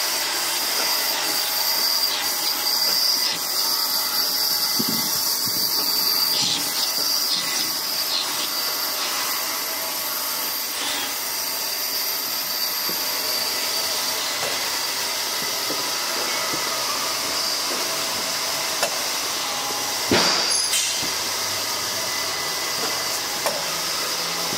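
Toilet paper production line machinery running steadily: a constant mechanical whir and hiss with a high steady whine. A few sharp clicks stand out, the loudest about twenty seconds in.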